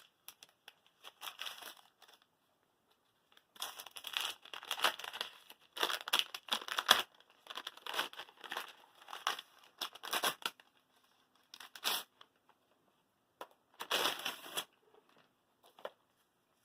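Plastic packaging crinkling and tearing as it is pulled off, in irregular bursts with short pauses between.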